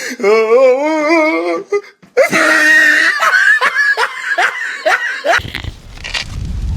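People laughing hard: a long, wavering laugh, then a run of loud, evenly spaced bursts of laughter. Near the end the laughter fades under a low rumble of wind on the microphone.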